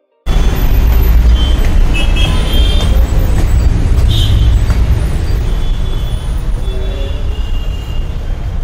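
Loud, steady low rumble of shop background noise, with a few faint higher sounds, cutting in abruptly just after the start.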